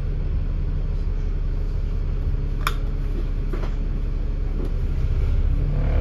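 Dennis Enviro500 MMC double-decker bus heard from inside: its diesel engine running with a steady low hum, a couple of sharp clicks in the middle, and the engine note rising as the bus pulls away near the end.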